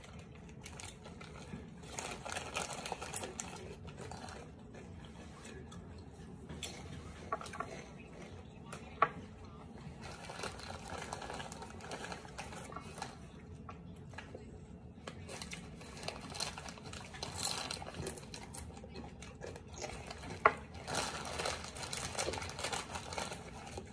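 Plastic snack bags crinkling and rustling as they are handled, with intermittent crunchy chewing of fried chicken-intestine snack and a couple of sharp clicks.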